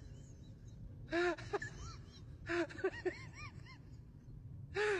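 A series of short wailing cries, each rising and then falling in pitch, one about a second in and then several more close together in the second half, over a steady low rumble.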